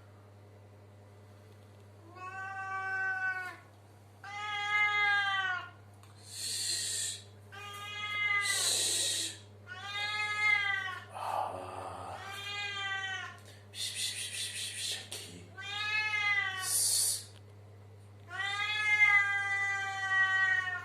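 Domestic cat meowing again and again: about eight long, drawn-out meows a second or two apart, the last one the longest. Short hissy bursts come between some of the meows.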